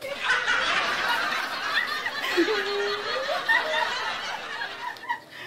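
A burst of laughter that starts suddenly, runs loud and dense, and cuts off abruptly near the end.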